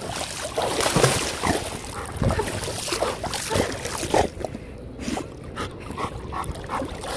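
Water splashing and sloshing as a golden retriever plays in shallow muddy water, in uneven surges, with a quieter stretch about four seconds in.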